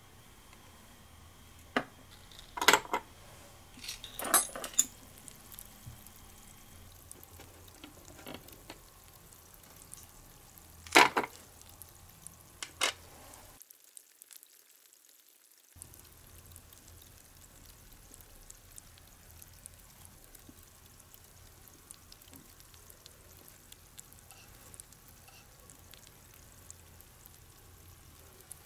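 Small plastic miniature toy pieces and a tiny metal toy pot clicking and knocking as they are handled and set down, a handful of sharp taps in the first half. After a short silent gap, a faint steady hiss with occasional tiny ticks.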